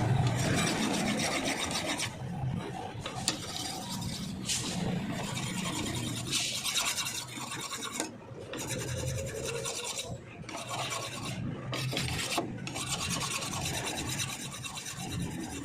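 A grass cutter's blade being sharpened: repeated rasping strokes along the edge, with a few short pauses between runs of strokes.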